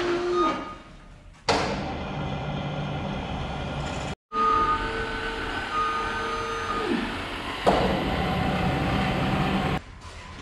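JLG boom lift running as it moves its basket: a steady mechanical hum with a whining tone, starting suddenly about a second and a half in. It drops out briefly about four seconds in, then stops near the end.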